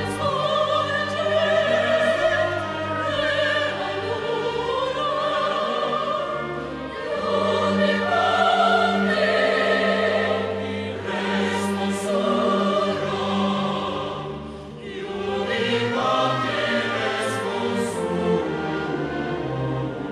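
Mixed choir of men and women singing with an orchestra of strings. The voices hold long notes with vibrato over sustained low string notes, swelling to their loudest about 8 to 10 seconds in and easing briefly around 15 seconds in before rising again.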